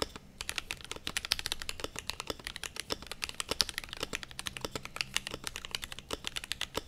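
Fast typing on a Glorious GMMK Pro mechanical keyboard with lubed and filmed Gateron Black Ink V2 linear switches and PBT Cherry profile keycaps: a dense, uneven run of keystroke clacks with a few brief pauses.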